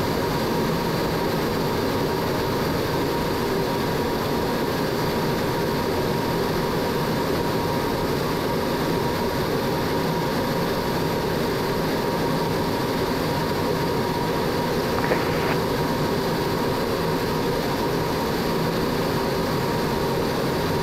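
Steady noise of a MiG-17 in formation flight, heard from the cockpit: its turbojet engine and the rushing air over the canopy, an even drone with a faint steady whine through it.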